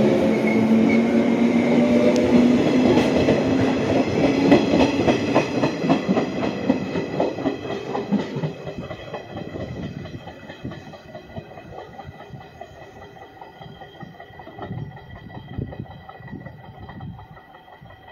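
JR West electric train pulling away from the platform: a low hum and wheels clacking over rail joints, loud at first and fading steadily over the first half as the train recedes, leaving only faint distant clicks and rumble.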